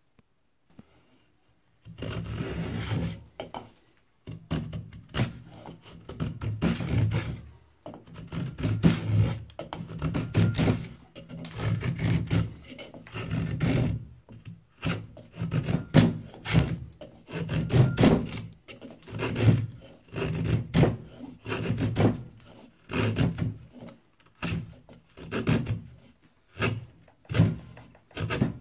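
Draw knife shaving a wooden board held in a bench vise: repeated rasping cutting strokes, about one a second, each peeling off a curled shaving. The strokes start about two seconds in.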